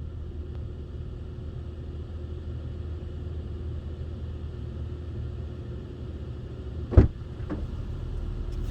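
Car engine idling with a steady low rumble. A single sharp thump comes about seven seconds in, with a lighter knock just after.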